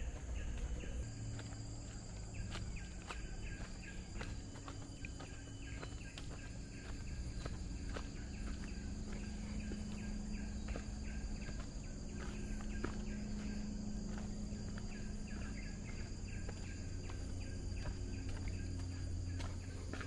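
A person's footsteps walking steadily on a path, over a steady high insect drone and a low steady hum.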